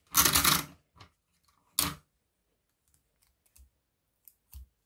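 Folded origami paper being handled, rustling and crinkling: a loud rustle lasting under a second right at the start, a short sharp crinkle about two seconds in, then a few faint small taps.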